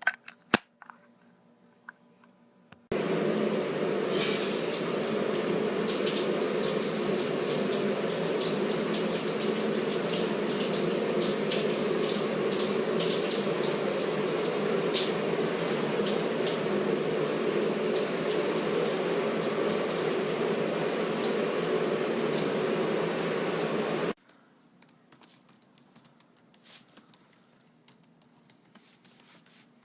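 Water running steadily from a tap into a sink. It is turned on about three seconds in after a few clicks, grows a little brighter a second later, and cuts off abruptly about 24 seconds in.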